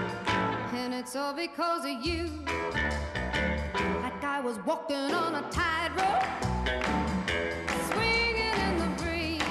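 Background music: a pop song with a singer over bass and drums.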